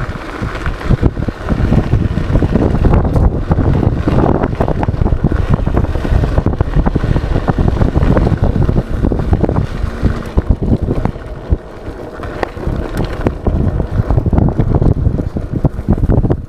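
Wind buffeting the microphone over the rumble and rattle of an electric scooter ridden on a bumpy dirt track, with frequent short knocks as it jolts over the ground.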